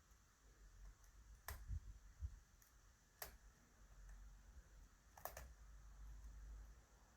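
Faint lock-picking clicks: a pick and tension tool working the pins of an ASSA 600 pin tumbler lock, a few sharp clicks about every two seconds, the last one doubled, over a low handling rumble.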